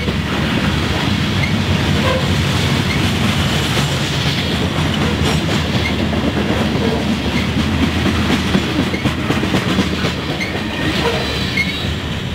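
A freight train's covered hopper cars rolling past close by, their wheels clicking and clattering over the rail joints with a steady rumble. The last cars go by near the end.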